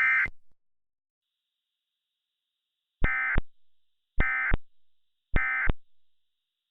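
Emergency Alert System End-of-Message data bursts: short, harsh, screeching digital tones. A burst cuts off just after the start, and after a silence three more come about a second apart, each trailing off with a short echo. They mark the end of the alert and the return to normal programming.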